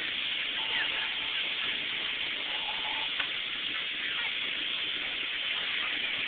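Steady hiss with faint, indistinct voices of adults and children talking in the background.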